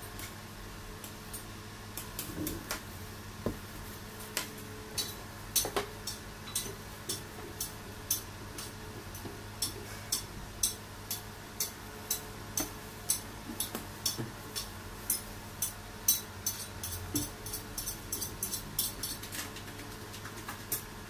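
A few light knocks, then a regular light ticking about twice a second that keeps an even pace for around fifteen seconds, over a faint steady hum.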